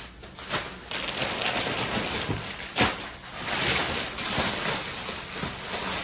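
Clear plastic packaging of a packed ladies' suit set crinkling and rustling as it is handled and opened, with one sharper snap nearly three seconds in.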